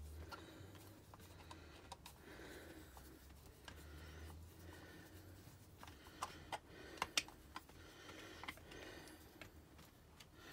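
Faint, scattered clicks and light metallic taps of a screwdriver working the crankcase screws of a small two-stroke moped engine casing, with a few sharper clicks in the second half.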